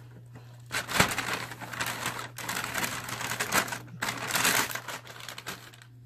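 Crackling, crinkling rustle of a paper bag being rummaged through, together with a plastic toy capsule being worked open, with a sharp click about a second in; the rustling stops shortly before the end.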